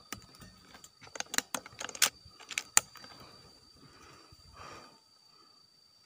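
Handling noise on an air rifle held on aim: a quick run of small clicks and knocks in the first three seconds, the sharpest about two seconds in, then a short soft rustle.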